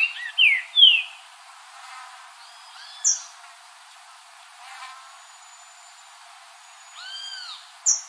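Green-winged saltator (trinca-ferro) singing: a loud phrase of downward-slurred whistles about half a second in. Softer arched whistled notes come again around three seconds in and near the end, with a sharp high tick at each.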